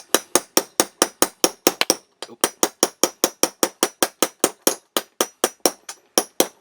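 Rapid hammer taps driving a roll pin out of a Walther P88 Compact pistol's frame, about four light metallic strikes a second with a slight ring, broken by a short pause about two seconds in.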